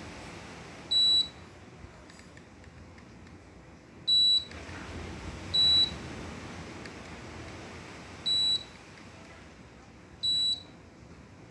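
Midea mini-split air conditioner indoor unit beeping five times: short, high single-pitched beeps at uneven intervals, the unit acknowledging each remote-control button press.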